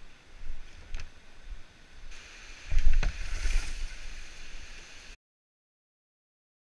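Low rumbling knocks on a helmet-mounted camera's microphone with the rush of river rapids, a louder bump about three seconds in. The sound cuts off to dead silence a little after five seconds.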